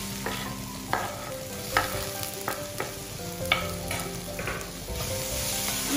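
Chopped tomato is tipped into a hot iron wok and stirred with a wooden spatula. Food sizzles steadily underneath, with several sharp knocks and scrapes of the spatula against the pan.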